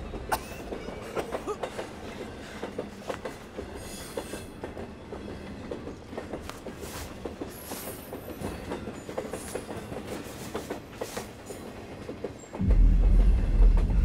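Irregular light rattling and clicking, then a loud low rumble starts suddenly near the end and keeps going.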